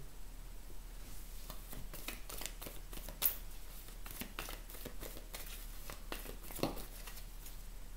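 Deck of oracle cards being shuffled by hand: a quick, irregular run of soft card clicks and slaps, with a sharper snap about three seconds in.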